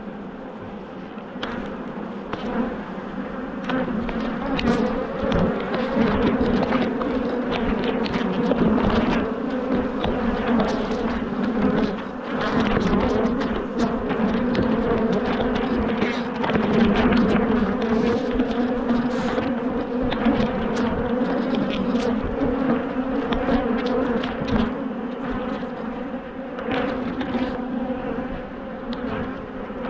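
Many honeybees buzzing around an opened hive, a dense steady hum that swells about four seconds in, with scattered sharp clicks throughout.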